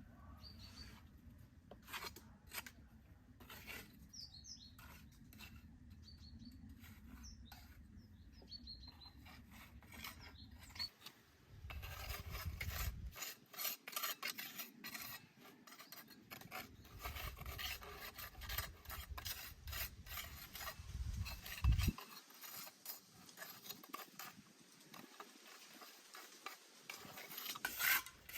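Quiet, irregular scraping and rubbing with many short clicks, like a hand tool working against a rough surface.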